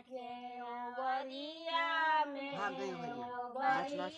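Women singing a sohar, the North Indian folk song sung at a child's birth, in long drawn-out held notes with no instruments.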